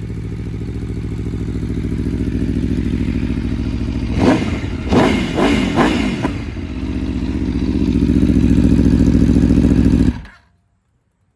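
Aprilia Tuono 1100 V4 engine breathing through a GPR exhaust with the dB killer removed. It idles steadily, then takes about four quick throttle blips in the middle, settles back to idle, and cuts off suddenly near the end as the engine is switched off.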